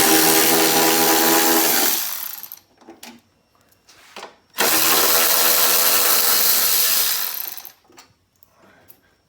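Cordless power driver with a 10mm socket spinning out wiper cowl and wiper motor bolts, in two steady runs of about three seconds each, with light clicks of handling in between.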